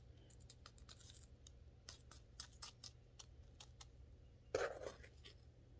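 Faint clicks and light scratches of a spoon scooping and dropping chunky perlite potting mix around a plant in a small pot, with one louder scrape about four and a half seconds in.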